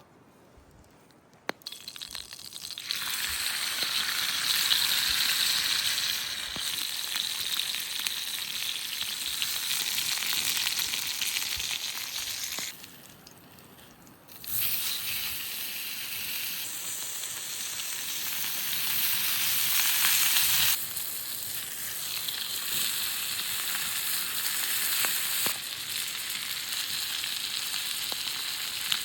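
Food sizzling and frying in a hot cast-iron pan. It starts after a sharp click about a second and a half in and builds quickly. Near the middle it falls away for about a second and a half, then sizzles again.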